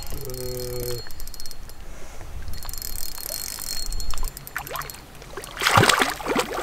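Spinning fishing reel being cranked to bring in a hooked rainbow trout, ticking in a rapid, even run of clicks.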